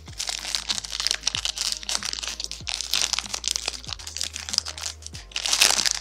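Crinkling and crackling of clear plastic wrap being peeled off a new Rubik's-type speed cube, loudest near the end, over background music with a steady beat.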